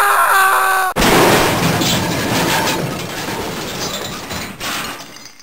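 Added sound effects over the closing titles: a held pitched tone that cuts off about a second in, followed by a loud crash like breaking glass that dies away over the next few seconds.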